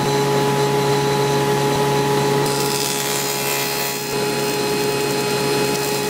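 Table saw running with a steady hum, its blade making a shallow half-lap pass through a wood piece fed in with a miter gauge.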